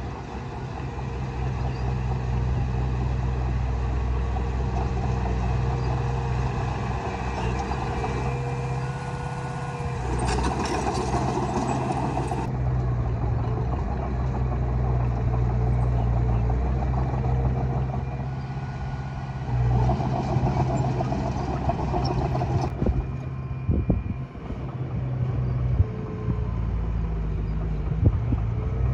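Diesel engine of a Komatsu D20A bulldozer running steadily while pushing soil. Its pitch swells and eases with the load, with louder metallic rattling twice and a few sharp knocks near the end.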